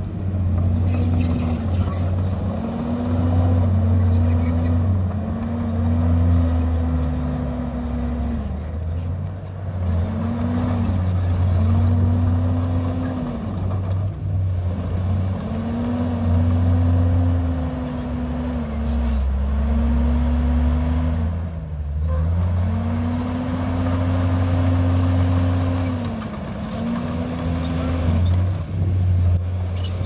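Komatsu D51PX bulldozer's diesel engine working under load while pushing soil. It revs up, holds, and drops back again and again every two to three seconds as the blade pushes and the machine backs off.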